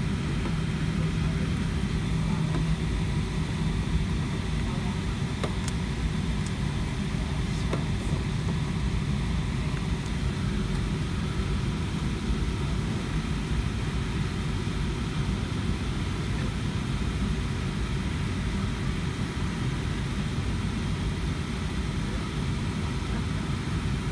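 Boeing 757-200 cabin noise while taxiing: the jet engines running at idle, a steady low rumble with faint steady tones above it.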